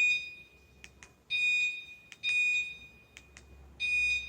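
A motorcycle alarm unit gives four short, high-pitched beeps, each about half a second long and spaced unevenly. Each beep answers a press of its button as the sensitivity is stepped one level at a time. Faint clicks fall between the beeps.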